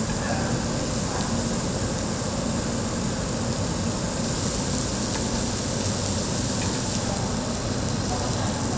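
Beef sizzling steadily on a hot cast-iron cauldron lid, a constant high hiss over a low steady hum.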